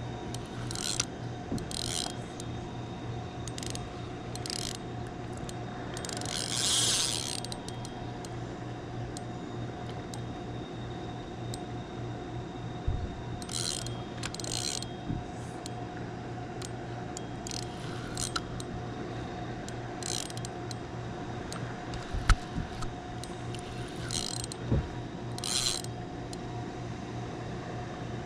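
Spinning reel being cranked steadily, its gears whirring as line is wound in against a hooked catfish pulling on the bent rod. Short bursts of higher hissing or clicking break in every second or few seconds, the longest about six seconds in.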